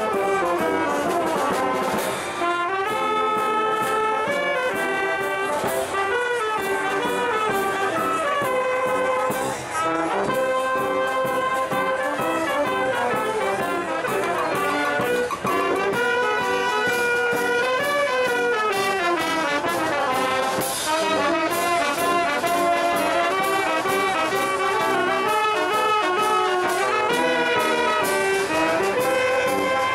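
Brass band music, with trumpets and trombones playing a melody.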